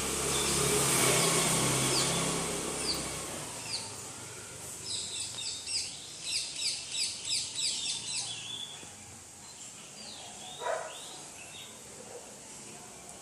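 Small birds singing: a few single high, falling notes, then a quick run of repeated high chirps, about two or three a second, around the middle, and another call near the end. A broad rushing noise with a low hum fills the first few seconds, then fades.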